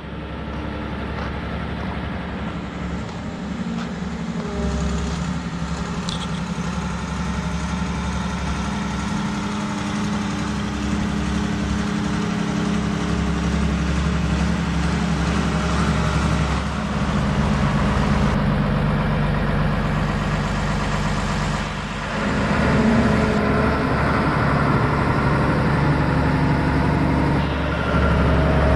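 Diesel engine of a road roller running steadily as it rolls fresh asphalt, growing louder as it comes closer, with a brief drop about 22 seconds in.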